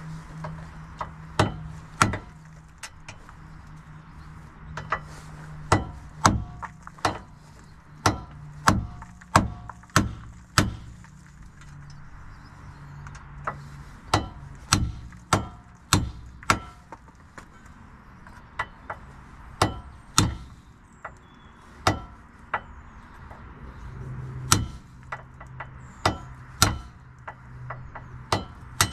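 Hammer striking a steel punch to drive out a bolt: many sharp metallic blows in irregular runs, some in quick succession, with short pauses between.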